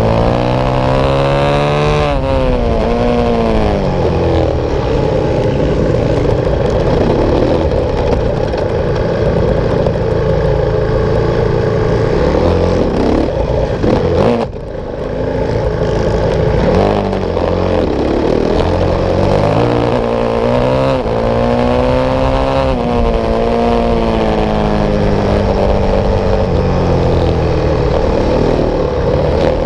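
Supermoto motorcycle engine recorded onboard at race pace, revving up and dropping back repeatedly through the gears, with wind rushing over the mic. About halfway through the engine briefly goes quieter, then picks up again.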